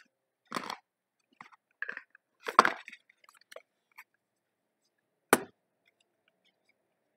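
Handling of the iPhone 11's white cardboard retail box and its paper document packet: a run of short scrapes and rustles, then a single sharp knock about five seconds in.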